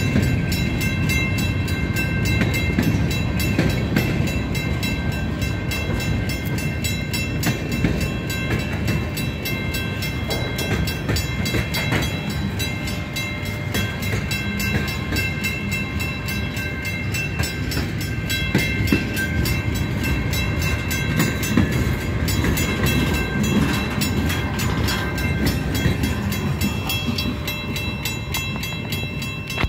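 Freight train of boxcars and covered hoppers rolling past close by: a steady rumble of steel wheels on rail with rapid clicking, and thin high-pitched squeal tones over it.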